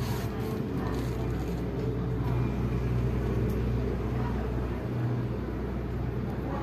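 Kitten purring while being stroked: a low steady rumble that swells and eases in waves.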